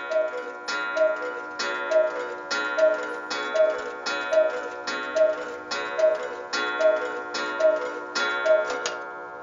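Adolf Herr 8-day Black Forest cuckoo clock striking twelve: the cuckoo's two-note call repeats about every 0.8 seconds, each call with a ringing strike of the clock's gong.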